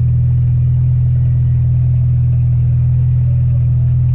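An engine running steadily at idle close by, a loud, unchanging low drone with an even pulse.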